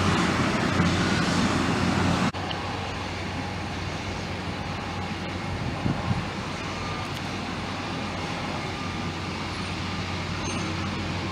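Jet airliner engine noise that cuts off abruptly about two seconds in. After the cut comes a quieter, steady airport background with a low hum.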